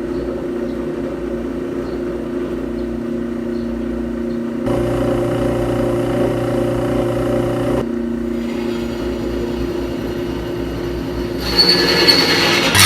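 A power tool's motor running steadily with a constant hum. It gets louder for about three seconds in the middle and again near the end.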